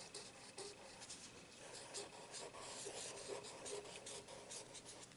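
Pen writing a word in cursive on paper, faint irregular scratching strokes.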